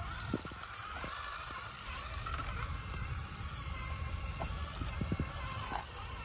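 Capo CD1582X Queen RC rock crawler's electric motor and gearbox whining, the pitch wavering with throttle as it crawls over boulders, with a few knocks from the tyres and chassis on the rock.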